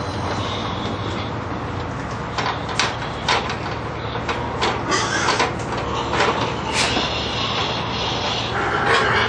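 Pigs crammed inside an aluminium livestock trailer, knocking against its walls and shuffling, with higher-pitched squeals coming in near the end, over a steady low hum.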